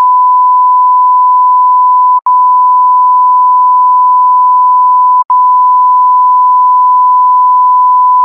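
A steady 1 kHz reference test tone of the kind played under colour bars, a single unwavering beep. It cuts out for an instant twice, about three seconds apart, with a click at each break.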